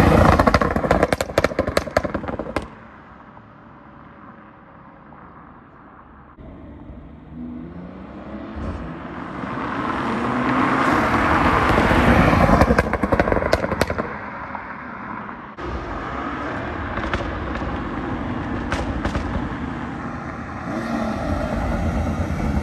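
BMW 340i's B58 turbocharged 3.0-litre inline-six with a catless downpipe, heard from outside the car as it drives past under throttle several times. Each pull builds to a loud peak, and bursts of sharp exhaust crackles come as the throttle comes off.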